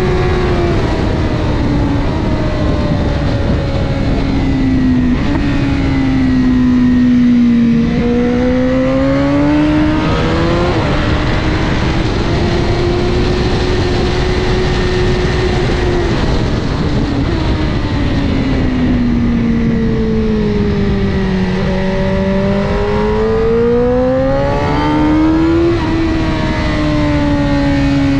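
Honda CBR1000RR superbike's inline-four engine running hard onboard at track speed, its revs climbing and falling several times, with a couple of sharper jumps in pitch.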